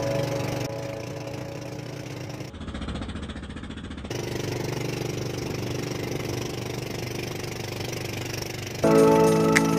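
Boat engine running at a steady pitch, cut in and out by the edit a few seconds in. Background music comes back in loudly near the end.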